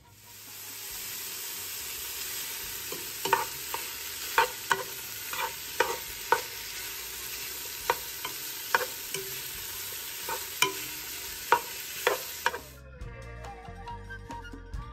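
Diced bacon sizzling as it fries in a stockpot, with a slotted spatula scraping and clicking against the pot as it is stirred. The sizzling cuts off near the end and music comes in.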